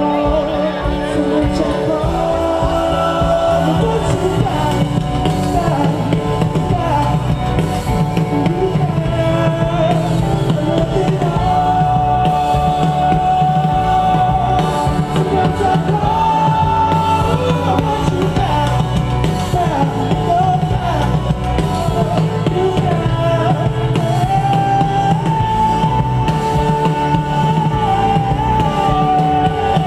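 Indie rock band playing live through a festival PA, with drums, guitar and singing, heard from within a large outdoor crowd.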